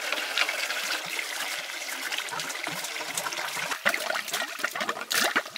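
Running, splashing water, with scattered light clicks and knocks.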